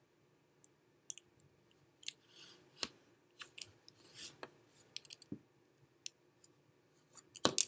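Faint, scattered clicks and scrapes of a hand wire stripper's jaws and stiff copper wire as the stripped ends of 14-gauge conductors are bent into hooks for receptacle terminal screws, with a couple of sharper clicks near the end.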